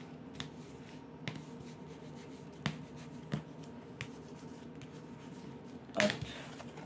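A bone folder scoring fold lines into cardboard, giving a few short scrapes and clicks about a second apart. About six seconds in comes a louder rustle as the folder is set down on the paper. A steady low hum runs underneath.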